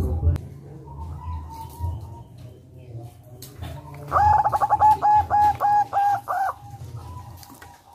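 Zebra dove (perkutut) singing. A few soft coo notes come first, then about four seconds in a loud, quick run of about eight short clipped notes lasts some two and a half seconds.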